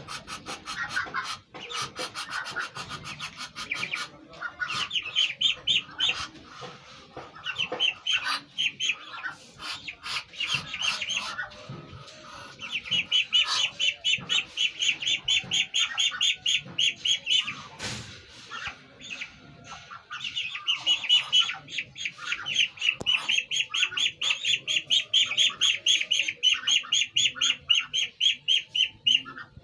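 Young Muscovy ducklings peeping in long rapid runs of high, evenly repeated calls, several a second, with short pauses between runs.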